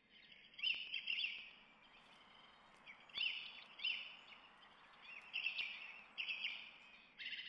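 Songbirds chirping in short bursts of quick high calls a second or two apart, over a faint steady outdoor hiss.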